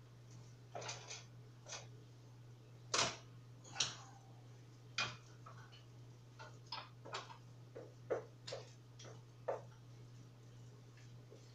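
Kitchen utensils and cookware being handled at a stove: irregular clicks, taps and clinks, the loudest about three and four seconds in, over a steady low hum.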